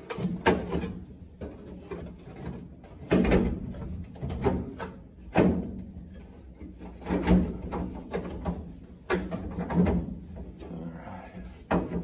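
Irregular knocks, clunks and scrapes as a center console with metal trim is set down and slid about on a bare steel floor pan to line it up over a floor shifter.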